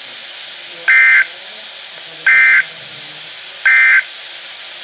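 Emergency Alert System end-of-message data bursts: three short, harsh two-tone digital bursts about 1.4 seconds apart, over a steady hiss. They signal the end of the alert message.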